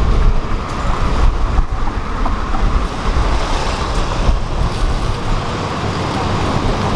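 Steady street traffic noise: a continuous low rumble of passing vehicles.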